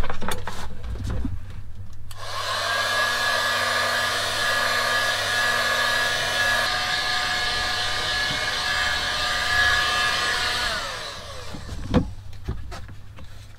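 Electric heat gun switched on about two seconds in, its fan blowing with a steady rush of air and a whine while it shrinks heat-shrink tubing over a crimped cable joint. It is switched off near the end and the whine falls as the fan spins down, followed by a couple of light handling knocks.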